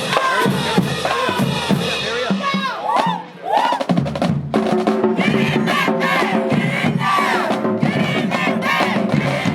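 High school marching band in the stands: the drumline plays while many voices shout and chant over it. About halfway through, the band joins in with held notes.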